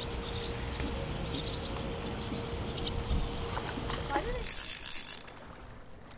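Quantum Hellcat spinning reel cranked steadily with a mechanical whir as a hooked bullhead is reeled in. About four seconds in, the fish splashes at the surface, and the sound stops suddenly about a second later.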